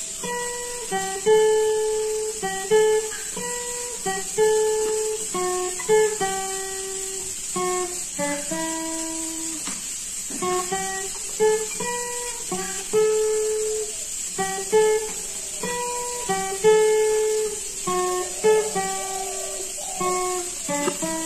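Acoustic guitar fingerpicked: a slow melody of single plucked notes and chords, each ringing out and fading before the next, with a steady high-pitched hiss underneath.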